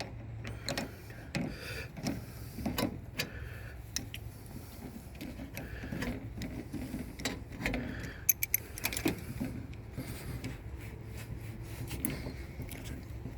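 Irregular small metallic clicks, taps and rattles of hand tools working a band clamp on a car's coolant hose, over a steady low hum.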